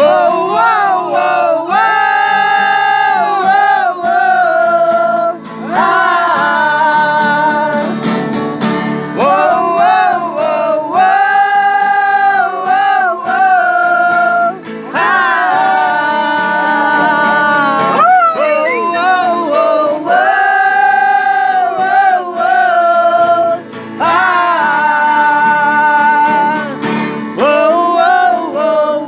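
Music: a voice singing over guitar accompaniment.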